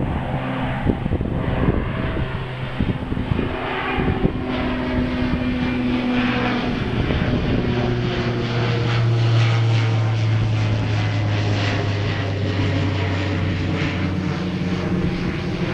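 Twin-engine turboprop airliner flying low overhead, its propellers and engines giving a steady drone with a deep hum whose pitch drops about halfway through as the aircraft passes and moves away.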